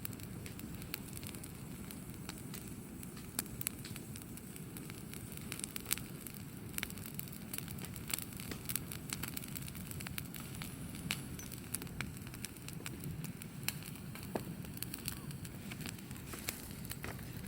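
Wood campfire crackling, with many sharp, irregular pops and snaps over a low, steady rumble.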